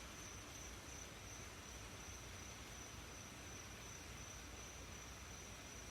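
Faint, steady hiss of rain with a continuous high-pitched cricket trill over it.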